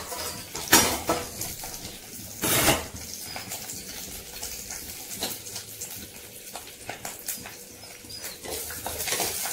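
Curry leaves crackling and spitting in hot oil in a clay pot during a tempering, with scattered small pops, one sharp crack about a second in and a louder half-second spatter around two and a half seconds.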